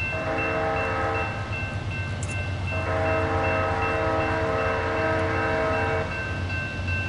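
Diesel locomotive air horn sounding a chord: a short blast, then a longer blast of about three seconds. A locomotive bell rings steadily in repeated strokes throughout, over a low rumble of the train.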